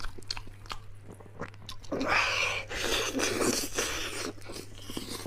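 Close-up wet chewing and biting of braised beef hoof tendon, with sharp mouth clicks at first, then a louder, denser stretch of chewing from about two seconds in.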